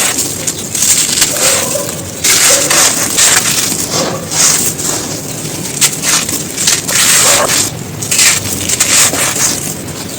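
Dry, brittle chunks of floor material crushed and crumbled close to the microphone: loud crunching in several bursts with brief pauses between them.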